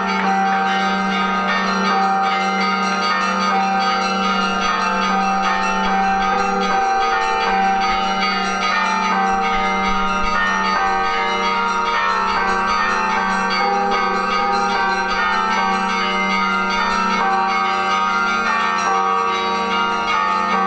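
Monastery church bells ringing a continuous peal: several bells of different pitch overlap without a break, over a steady low tone.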